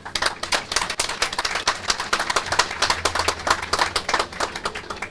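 Crowd applauding: a dense patter of many hands clapping that starts suddenly and dies away near the end.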